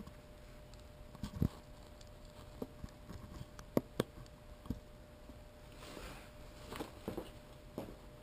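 Scattered light clicks and taps at irregular intervals over a faint steady hum.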